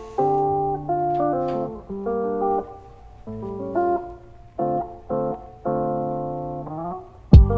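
Background music: a plucked guitar melody of short, fading notes, with a deep beat coming in near the end.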